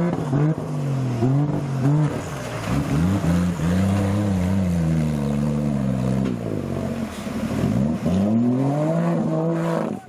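Off-road 4x4 engine revving up and down again and again as the vehicle ploughs through deep, muddy water, with a long rising rev near the end. Water splashes around the wheels.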